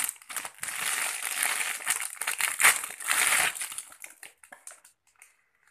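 Clear plastic bag crinkling and rustling as it is pulled off a pair of bangles, fading out about four seconds in.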